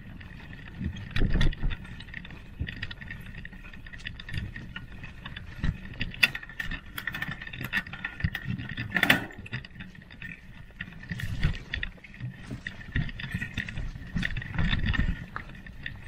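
Mountain bike riding over a rough dirt forest track: tyre noise with irregular rattles and knocks from the bike jolting over bumps, and low rumbling surges from wind on the microphone. One sharper knock comes about nine seconds in.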